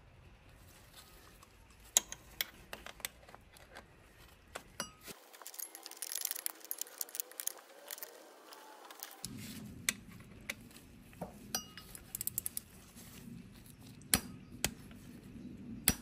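Hand tools clinking: a small torque wrench and its socket being handled and set, giving scattered sharp metallic clicks and clinks, with a denser run of clicks in the middle.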